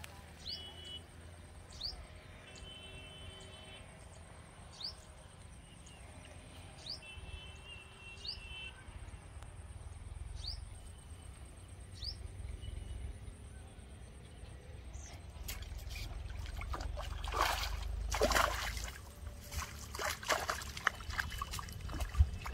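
Small birds calling with short rising chirps every second or two over a thin, steady high whine. From about halfway through, louder irregular rustling and trickling, splashy water noise takes over.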